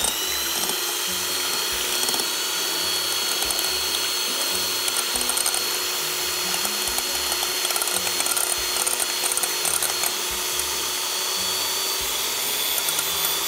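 Electric hand mixer switched on and spinning up, then running with a steady whine as its twin beaters whip egg whites in a glass bowl.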